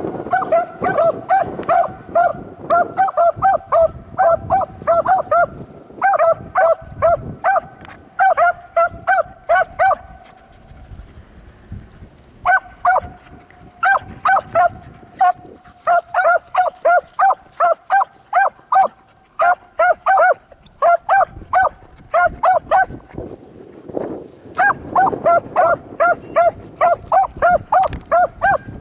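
Beagle hounds barking in quick, short, evenly pitched yelps, about three a second, as they run a rabbit track on scent. The barking breaks off briefly about ten seconds in, then picks up again.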